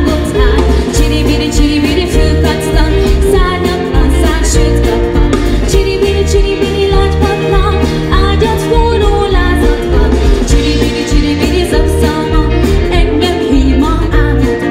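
Live band playing a Hungarian children's pop song: a woman sings lead through a PA, backed by electric keyboard, electric bass guitar, electric guitar and a drum kit keeping a steady beat.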